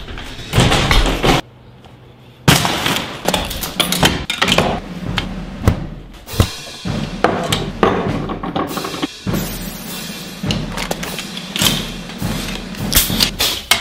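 Background music with a drum beat, dropping out briefly about one and a half seconds in.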